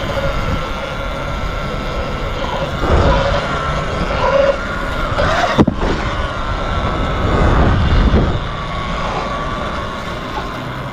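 Sur-Ron electric dirt bike's motor whining while riding, its pitch sliding up and down with speed, with a sharp rise about halfway through, over a rough rushing noise.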